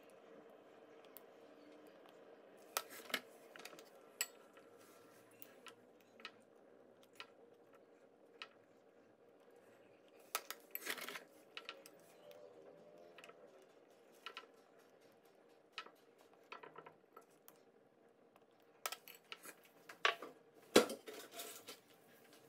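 Small glass cups being set down and shifted on a granite countertop: scattered light clinks and knocks, with a louder cluster near the end, over a faint steady hum.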